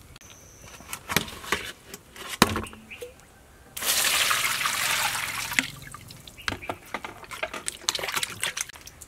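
A few knocks and taps as pork belly is handled in a plastic colander. Then water runs into the colander, starting suddenly, for about two seconds. After that come wet splashing and squelching as hands rub and rinse the meat in the water.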